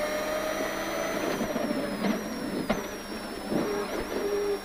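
Rally car engine running under load through a hairpin, heard from inside the cabin, with a high steady whine over it. Sharp knocks come through about two, two and a half and three and a half seconds in.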